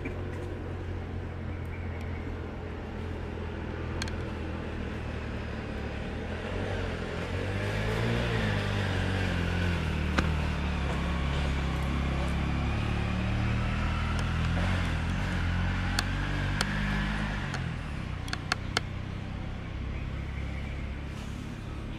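A motor vehicle engine running, louder with its pitch rising and falling for about ten seconds in the middle, over a steady low rumble. A few sharp clicks near the end.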